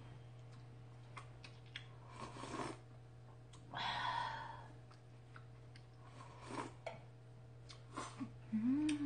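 Close-miked eating sounds: slurping and sipping from a bowl held to the mouth in several short breathy bursts, the loudest about four seconds in, with small clicks in between. Near the end a short rising hummed "mm".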